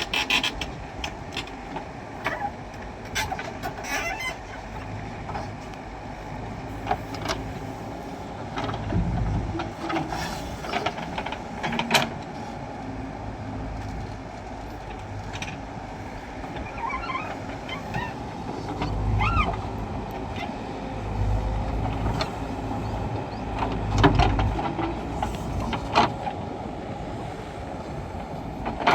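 Diesel engines of a backhoe loader and tractors running steadily, swelling several times as they rev, with repeated sharp metallic clanks and knocks. A few short squeaky calls rise and fall partway through.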